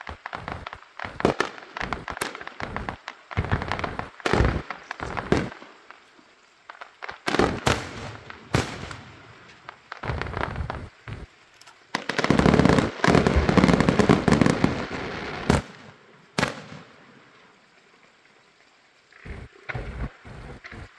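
Fireworks and firecrackers going off: a run of sharp bangs, a dense crackling barrage lasting about three seconds past the middle, then quieter with a few scattered bangs near the end.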